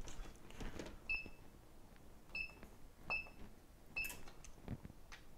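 Four short, high electronic beeps at uneven intervals from a piece of bench electronics, with light clicks and handling noise between them.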